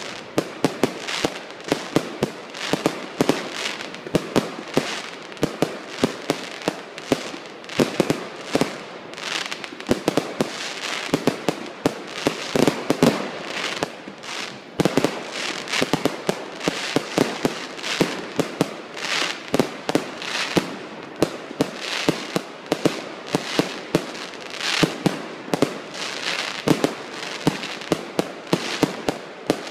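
Aerial fireworks going off in a continuous barrage: dense, irregular sharp bangs and crackling pops, several a second, with no let-up.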